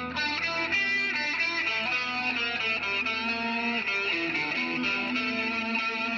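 Electric guitar played through a wah pedal and a Moduverb reverb effect: a run of ringing notes that starts with a sharp attack and changes pitch every fraction of a second.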